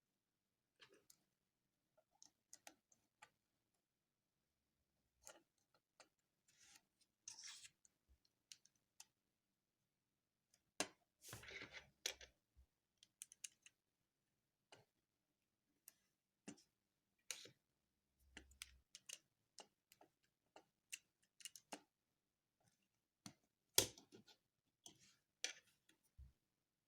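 Faint, scattered clicks and light handling noises at irregular spacing, with a short cluster about 11 to 12 seconds in and a sharper single click near the end.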